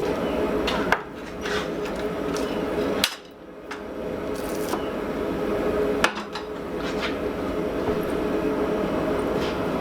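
Three sharp metal strikes, about one, three and six seconds in, over the steady running hum of the forge.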